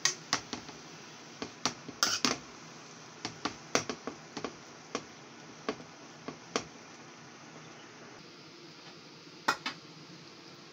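A spatula clinking and scraping against a stainless steel pan while egg noodles are tossed in it. The irregular knocks come in a busy run over the first six or so seconds, then a single close pair near the end.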